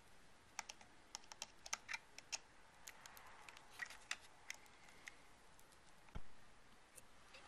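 Faint, irregular light clicks and taps of small objects being handled, with one dull thump about six seconds in.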